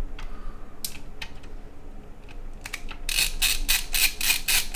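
A few light clicks of handling PC parts, then from about three seconds in a fast, even run of sharp ratcheting clicks, about six a second.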